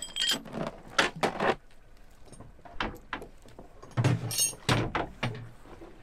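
Anchor chain clanking and rattling against the boat's side as it is paid out by hand, in irregular clatters. A few dull thumps and a short metallic jingle come around the fourth and fifth second.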